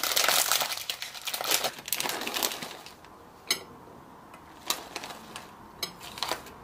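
Plastic snack bag of raisins crinkling as it is handled and opened, loud and continuous for the first couple of seconds, then a few single crackles as the bag is tipped to pour the raisins out.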